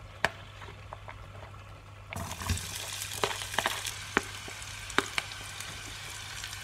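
Chopped onion and green onion going into hot olive oil in a pan: about two seconds in they start sizzling and crackling, with sharp clicks of a metal spoon scraping them off a plate.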